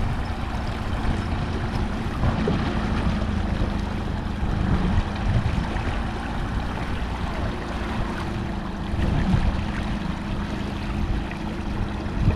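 Small boat outboard motor running steadily at a constant pitch while under way, with wind buffeting the microphone and water washing alongside.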